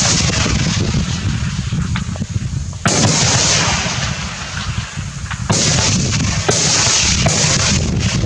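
Rifle range with heavy wind rumble on the microphone throughout, broken by two sudden sharp bangs, about three seconds and five and a half seconds in, which fit rifle shots.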